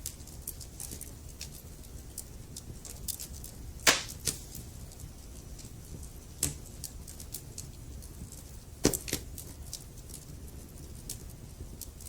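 Wood fire crackling: a steady low rumble of burning logs with frequent small snaps and a few louder pops, the loudest about four seconds in and again near six and a half and nine seconds.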